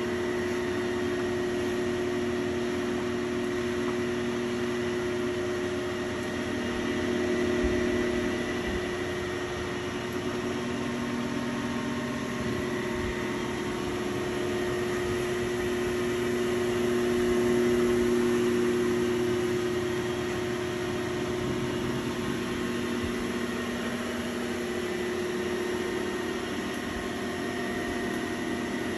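Besly Beloit 318 9-inch horizontal disc grinder running, its 5 HP three-phase spindle motor giving a steady electric hum with a faint high whine. The sound swells slightly a couple of times.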